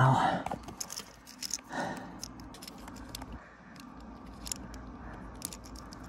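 Small clicks, taps and rustles from hands handling wiring and plastic wire connectors at a dishwasher drain pump, with a slightly louder rustle about two seconds in.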